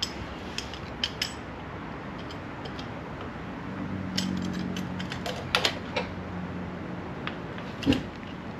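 Seal puller working at the rear main (flywheel-end) oil seal of a VW 1600 dual-port engine: scattered metal clicks and scrapes, a cluster of them around four to six seconds in and a sharper knock near the end. A low steady hum sounds in the background midway.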